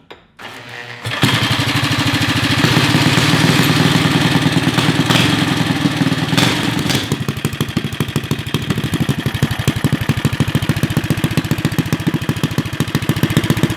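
Single-cylinder Briggs and Stratton 5 hp flathead engine, spun over with a cordless drill on the flywheel nut, catches about a second in and runs fast and steady. From about seven seconds in it runs slower, with separate firing beats.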